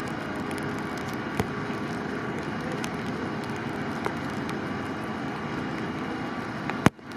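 An engine running steadily, with a few faint clicks; it breaks off abruptly near the end.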